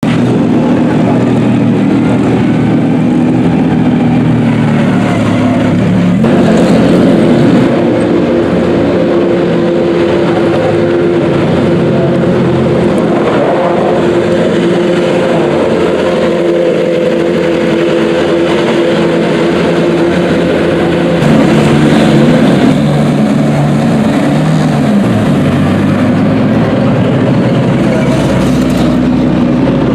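Race car engines running loud and steady, with small rises and falls in pitch.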